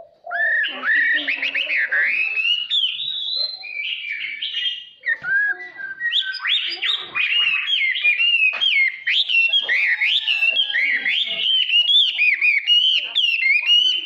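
Chinese hwamei singing a long, varied song of rapid whistled phrases, with a short break about five seconds in.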